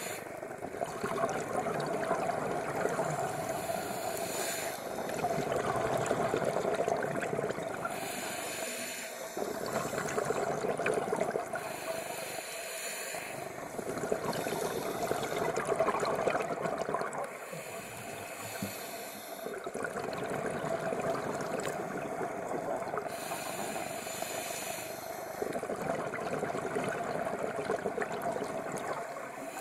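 Scuba diver breathing through a regulator underwater: a hiss alternating with a bubbling gush, in slow repeating breaths every few seconds.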